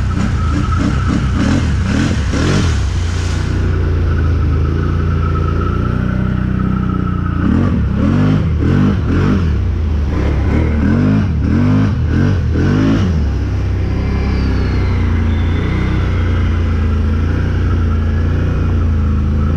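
Can-Am 1000's V-twin engine running under load through deep water, its throttle tapped again and again so the revs rise and fall in quick surges. There are two spells of this, one near the start and a longer one in the middle; between and after them the engine holds a steady drone.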